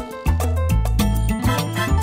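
Upbeat background music with a steady beat and a strong bass line.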